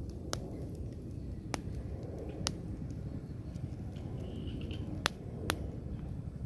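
Fire crackling under grilling fish: a handful of sharp pops scattered over a steady low rumble.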